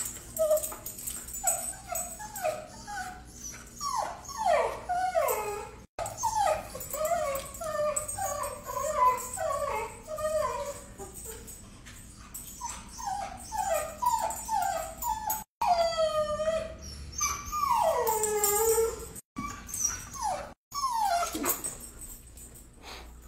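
A dog whining and whimpering over a bone it has just been given: a long string of short, high cries, many sliding down in pitch, with brief pauses between.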